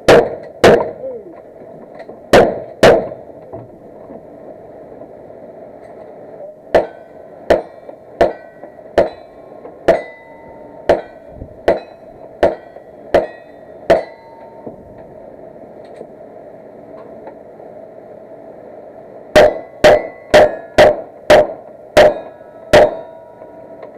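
Gunshots: four pump-action shotgun blasts in two quick pairs, then a steady string of about ten pistol shots under a second apart, and near the end a faster string of about seven. Steel targets ring briefly after many of the shots.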